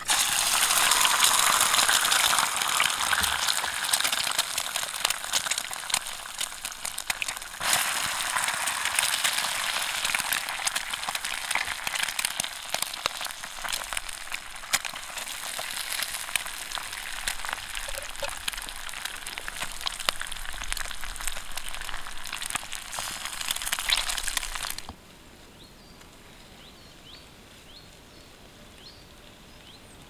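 Eggs frying in hot oil in a frying pan with pieces of meat: a dense crackling sizzle that is loudest as the eggs hit the oil. It stops abruptly a few seconds before the end, leaving a quiet outdoor background.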